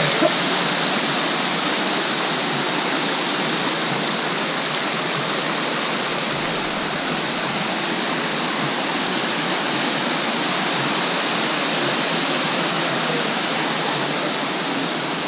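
Steady rushing of a waterfall cascading over rock into pools, an even, unchanging hiss of falling water.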